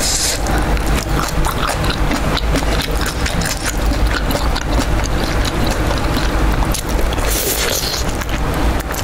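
Close-miked eating sounds: wooden chopsticks picking at sauce-coated spicy fried chicken, with chewing and many small clicks and smacks, and a bite into the chicken near the end.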